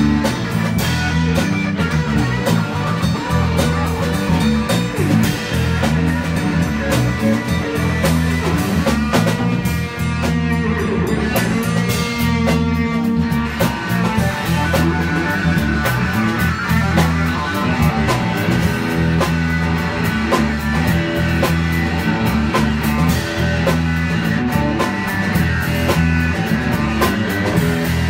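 Live blues-rock band jam: an electric guitar playing over electric bass and a drum kit.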